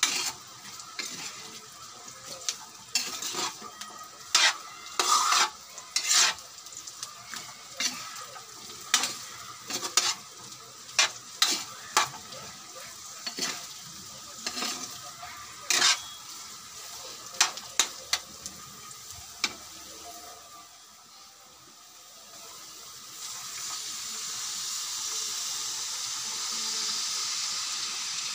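Metal spatula scraping and clanking against an aluminium wok in irregular strokes as meat and carrots are stir-fried, with a light sizzle underneath. Near the end the stirring stops and a steady hiss builds as water is poured into the hot wok.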